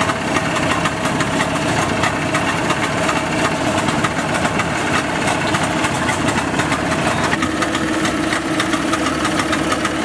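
An engine idling steadily, with a fast, rough rattle running through it.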